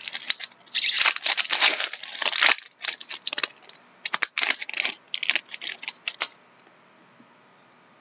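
Crinkling and rustling of a hockey card pack and its cards being handled, dense for the first two and a half seconds. Then a run of quick clicks and flicks as the cards are thumbed through one by one, ending about six seconds in.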